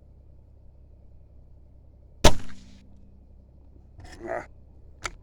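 A single Weihrauch HW50S .177 air rifle shot about two seconds in: one sharp crack with a short ringing decay. A softer rustling sound follows about four seconds in, and a brief click near the end.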